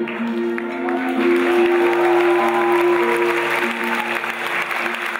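Music with long held notes, with audience applause setting in about a second in and growing to fill the hall.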